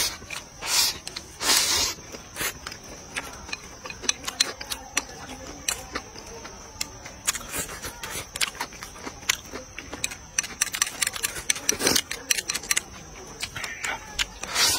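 Close-up eating sounds: chopsticks scraping and tapping a plate as rice and stir-fry are shoveled into the mouth, with wet chewing and lip smacks making many quick irregular clicks. A longer noisy shoveling slurp comes about one and a half seconds in.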